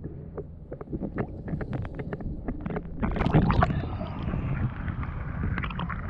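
Shallow sea water heard through a camera held at and under the surface. There are clicks and bubbling while it is submerged, then about three seconds in it breaks the surface to lapping, splashing water with wind on the microphone.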